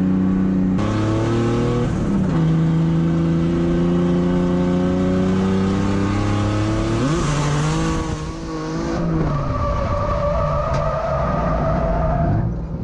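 Drift car's engine heard from inside the cabin, running hard at high revs. Its pitch drops about a second in, climbs around seven seconds and drops again around nine, over the noise of tyres sliding.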